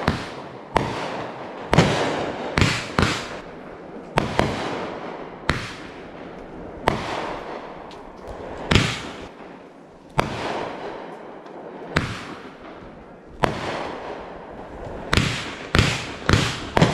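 Aerial fireworks going off: a string of sharp bangs about a second apart, each trailing off after the burst. There are gaps of a second or two near the middle, then a quicker run of bangs near the end.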